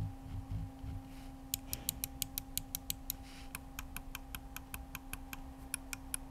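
Mad Catz M.O.J.O. M1 gaming mouse buttons clicking on its Dakota micro-switches: a quick run of sharp clicks, about four to five a second, starting about a second and a half in, with brief pauses between runs.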